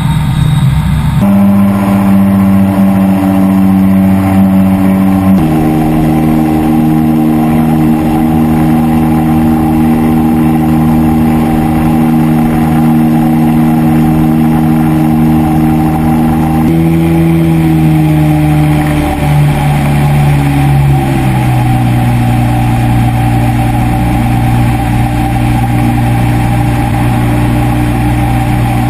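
Engine and pusher propeller of an AirBorne ultralight trike droning steadily in flight. The pitch steps up once shortly after the start, then drops in several steps in the second half.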